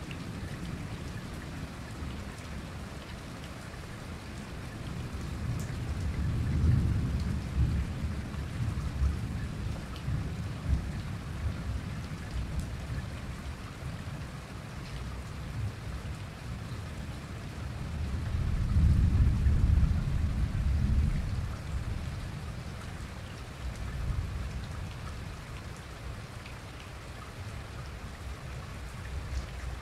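Heavy rain pouring down in a thunderstorm, a steady hiss, with two long rolls of thunder, the first about six seconds in and the louder one about nineteen seconds in.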